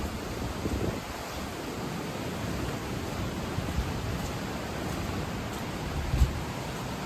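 Swollen creek in flood rushing steadily past, an even wash of water noise. A brief low thump comes about six seconds in.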